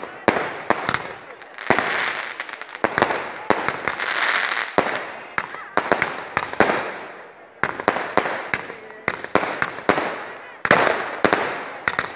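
Fireworks launched from ground tubes and bursting overhead: a dense string of sharp bangs, several a second at times, with stretches of hissing crackle between them.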